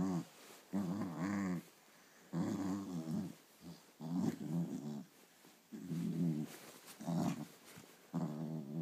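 Small terrier play-growling at a hand hidden under a blanket: a series of about six throaty growls, each under a second long and wavering in pitch, coming roughly every second and a half.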